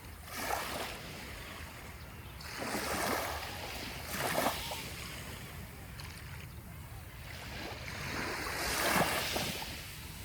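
Small sea waves breaking and washing up the shore, surging three times, over a steady low rumble.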